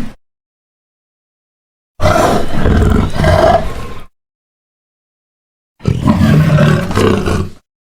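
Two puma growling roars, each about two seconds long, one starting about two seconds in and the other near the end, both cut in and out sharply with dead silence between them. Edited puma calls standing in for a black panther.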